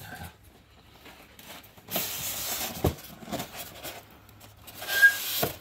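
Cardboard rubbing and sliding as a white inner box is pushed out of its orange cardboard sleeve, in two scraping spells about two and five seconds in, with a knock between them and a short squeak near the end.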